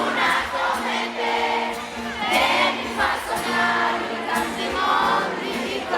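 Live pop song played through a PA, with voices singing the melody over steady backing instruments and the sound of a crowd.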